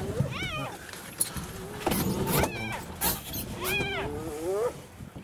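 Spotted hyena calling: a series of about four high calls, each rising and then falling in pitch, some drawn out. A few sharp clicks and knocks come in between.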